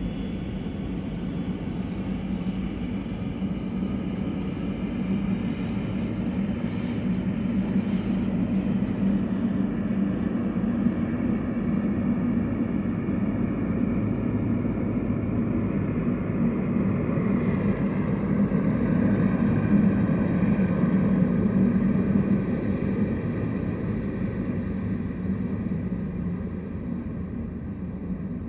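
Boeing 777 freighter's twin GE90 turbofan engines at taxi power: a steady low rumble that swells as the jet rolls past and eases off near the end, with a faint engine whine that sinks slightly in pitch in the second half.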